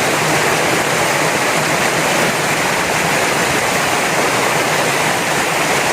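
Waterfall heard close up: a steady, loud rush of falling water.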